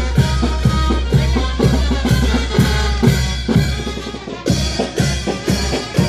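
Dance music with a steady drum beat, about two strokes a second, over a constant low drone. It dips briefly about four seconds in, then the beat picks up again.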